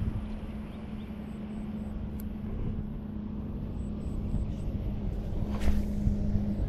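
Steady drone of an engine running, with low rumble underneath; about five and a half seconds in, a short swish as the fishing rod is cast.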